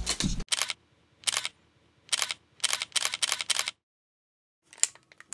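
Outro sound effects: a string of six or seven short, sharp swishes, irregularly spaced, over the first three and a half seconds, then a pause and a few faint clicks near the end.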